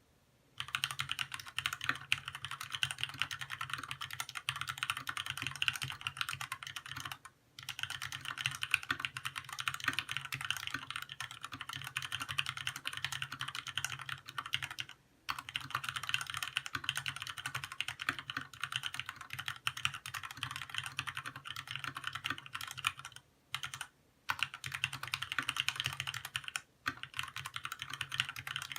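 Fast continuous typing on a 65% mechanical keyboard with Cherry MX Red linear switches and ABS keycaps, a dense run of key clacks with a few brief pauses.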